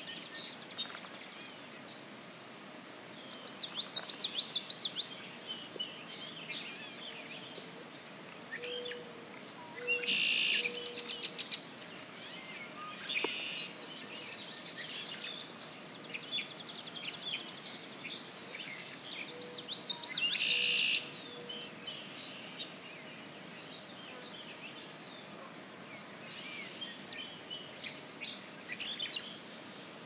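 Several songbirds singing in spring woodland. The loudest song phrases, which come every several seconds, are a Baltimore oriole's.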